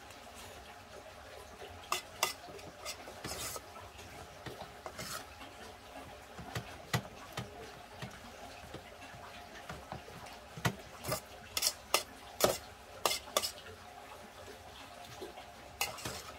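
A spoon clinking and scraping against a pot as rice with lettuce and stir-fried eggplant is mixed and scooped up, in scattered strokes with a busier run of clinks about ten to thirteen seconds in.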